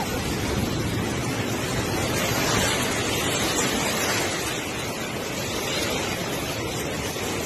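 Muddy floodwater rushing and surging past, a steady, unbroken noise of churning water.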